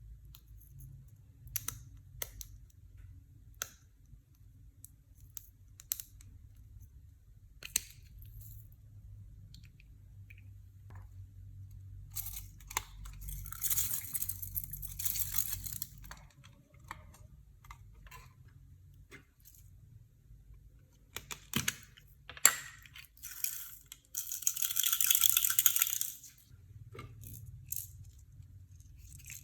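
Small hard objects clicking and clinking as random things are handled and mixed into clear slime, with two longer spells of crackling, one about halfway through and one near the end.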